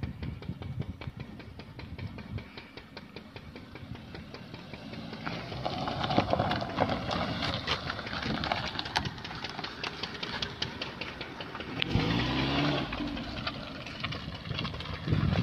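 Maruti Swift Dzire's 1.2-litre petrol engine running as the car drives slowly past on a stony dirt track, with the tyres crackling over loose stones. It is loudest as the car passes, about six to nine seconds in.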